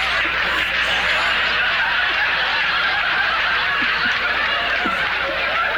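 Studio audience laughing hard and steadily, many voices at once.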